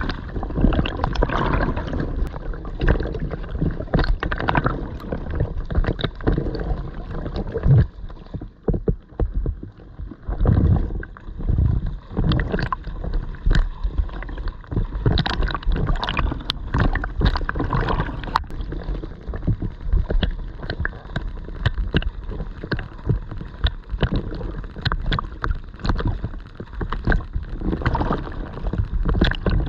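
Water splashing and gurgling from an ocean swimmer's strokes, in uneven rushes with short splashes, briefly quieter about eight seconds in.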